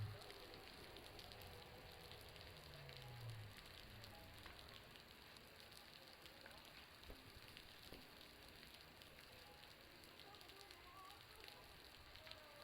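Faint, steady patter of water falling from a building's roof: many small scattered ticks that sound like a bonfire crackling.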